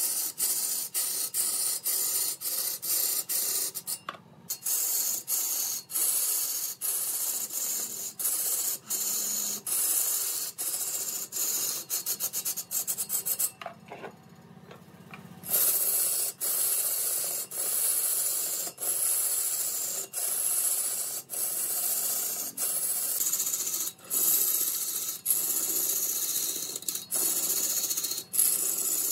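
Abrasive scraping strokes on wood, repeated by hand at about two a second with a brief pause about halfway through.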